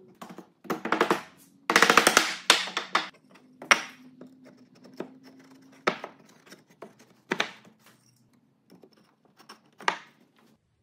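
Wooden half-lap joints of a table-skirt grid being pushed and knocked into their notches by hand: a string of sharp wooden knocks and clatters, with a quick rattling burst about two seconds in, then scattered single knocks.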